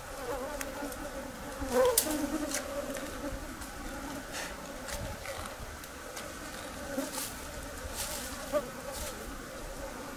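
Flying insects buzzing steadily around an elephant carcass, swelling for a moment about two seconds in, with a few sharp clicks scattered through.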